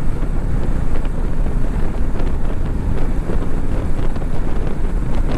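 Wind buffeting the microphone on a moving motorbike at road speed, a steady rushing noise with the bike's running and road noise underneath.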